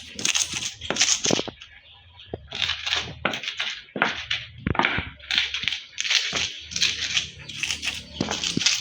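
Hand preparation of mango for a raw sambal: repeated rough crushing strokes, about two a second, with a short pause about two seconds in.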